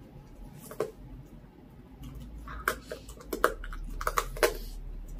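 Dachshund eating a whole raw duck: wet tearing and a run of sharp crunching clicks as its teeth work through the flesh and bone. The clicks come once about a second in, then bunch together between about two and a half and four and a half seconds in.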